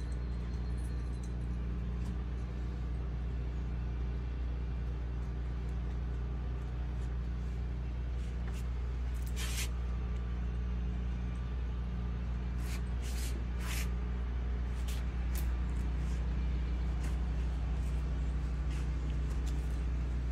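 Steady low mechanical drone of a running motor, with a few short hisses about nine seconds in and again around thirteen seconds in.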